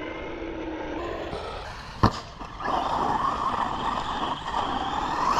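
Maverick Quantum 2 Flux 3S brushless RC monster truck running, its electric motor whining. There is a sharp knock about two seconds in, then a louder, steadier whine as the truck drives on.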